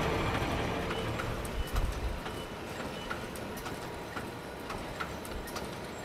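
Factory machinery: scattered light clicks and ticks, irregular and a few a second, over a low hum that dies away about two seconds in.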